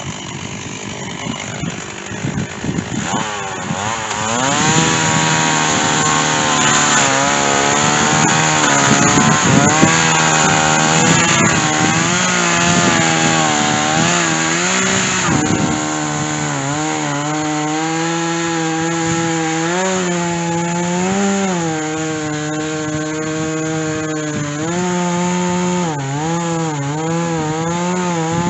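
Stihl chainsaw cutting through white oak with a dull chain. It runs at uneven, lower revs, then opens up about four seconds in and holds a high pitch under load that dips and recovers again and again as the chain bites into the wood.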